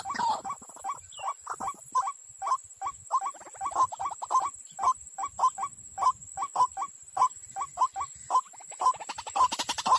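White-breasted waterhen calling: a long run of short, clipped notes repeated about four times a second, coming faster near the end, over a faint steady high whine.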